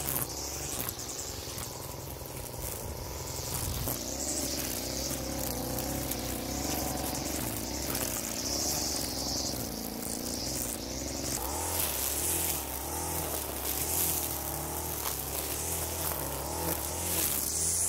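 Small 25 cc two-stroke engine of a NAC TP248-10SP petrol string trimmer running while the line cuts grass, its revs rising and falling. The sound changes abruptly about four seconds in and again a little past the middle.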